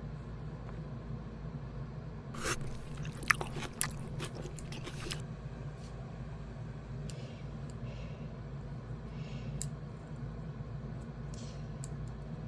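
A quick run of crisp crunches and crinkles about two and a half seconds in, lasting a few seconds, then a few single clicks, over a steady low hum.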